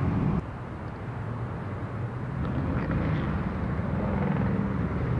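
Steady low outdoor rumble, such as wind on the microphone or distant traffic, dropping suddenly about half a second in and building back up.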